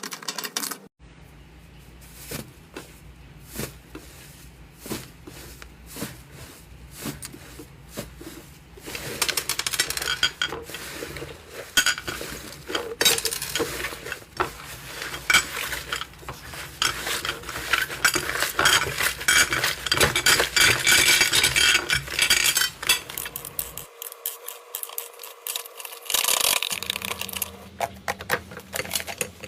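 Slime being worked by hand, with dense, irregular clicking and crackling that is busiest in the middle, over a steady low hum.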